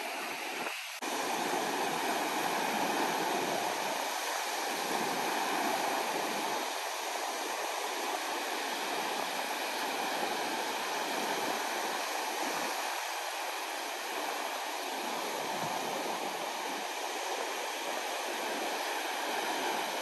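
Ocean surf: small waves breaking and washing up a sandy beach in a steady rushing noise, which steps up abruptly in level about a second in.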